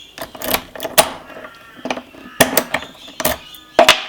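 Irregular sharp metal clicks and knocks, about eight in four seconds, from handling a padlock clamped in a vise and its tools, the loudest near the end.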